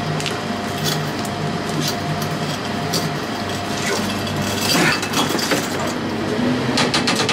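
BMW R1200GS being heaved up onto its heavy centre stand: light metallic clicks and knocks from the stand and frame, with a louder clunk and scrape about five seconds in as the bike rocks up onto it, over a steady low hum.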